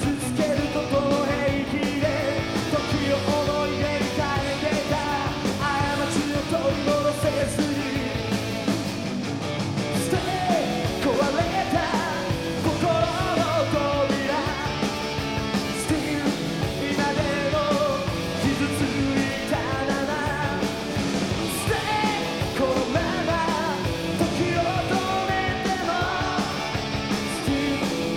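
Rock band playing live: electric guitar, bass and drums, with the lead singer's vocals over them.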